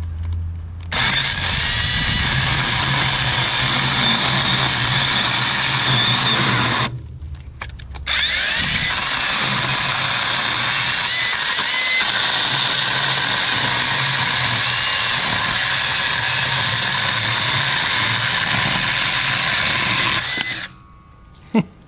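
Sainlogic 21-volt mini cordless electric chainsaw with a 6-inch bar cutting through a wooden 4x4: a steady motor hum with the chain chewing through the wood. It stops for about a second around seven seconds in, then runs on for about twelve seconds until the cut is through and it stops.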